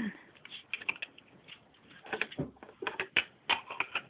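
Plastic Lego pieces clicking and clattering as they are handled and pressed together, with irregular sharp clicks several times a second.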